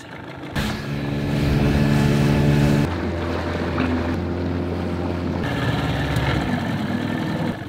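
Small boat's outboard motor running steadily under way, with wind and water noise. The engine note changes abruptly about three seconds in and again past five seconds.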